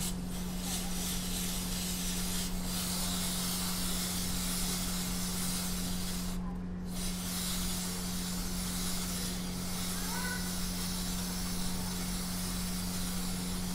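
Aerosol chain-cleaning spray hissing from a Motul can onto a motorcycle drive chain. It comes as two long sprays with a short break about six seconds in, as the chain is coated all over.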